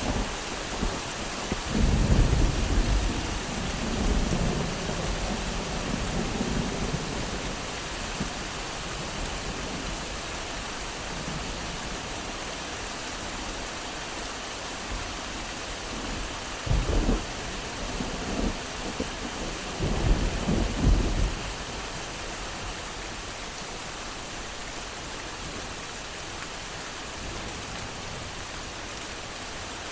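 Steady rain with light thunder: low rumbles roll in a couple of seconds in, then twice more a little past the middle, over the even hiss of the rain.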